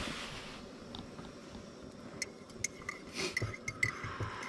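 A spoon clinking against a mug as tea is stirred: light, quick clinks, a few a second, starting about halfway through.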